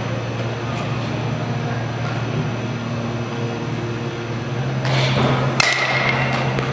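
A steady low mechanical hum. About five and a half seconds in, a short rushing noise is followed by a baseball bat striking a ball once with a sharp crack and a brief ring.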